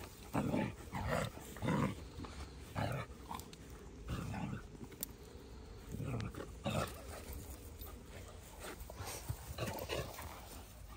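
Dalmatians growling and vocalising in play as they wrestle, in short irregular bursts.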